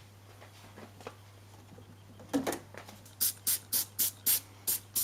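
Trigger spray bottle of Vanish stain remover being pumped onto a stained cloth: a quick run of short hissing sprays, about four a second, starting about three seconds in.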